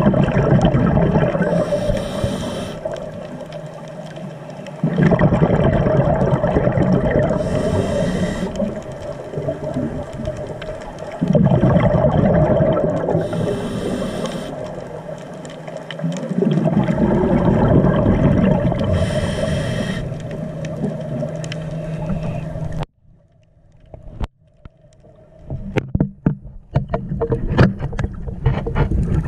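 Scuba diver's regulator breathing underwater: four breaths, each exhale a long gurgling rush of bubbles and each inhale a shorter hiss. Near the end the breathing stops suddenly and gives way to scattered clicks and crackles.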